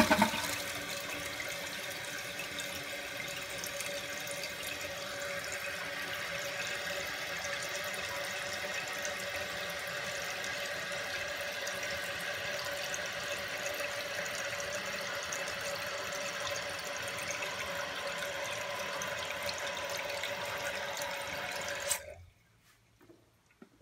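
Toilet tank refilling through a new universal fill valve: a steady rush of water with a faint steady tone under it, running evenly with no pulsing. It stops suddenly near the end.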